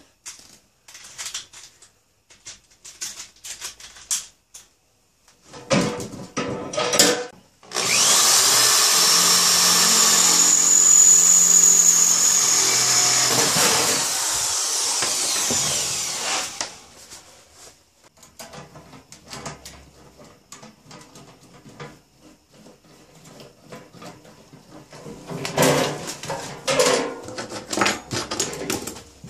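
Electric power tool working metal, running steadily for about eight seconds before slowing to a stop. Scattered clicks and clatter of metal parts being handled come before and after it.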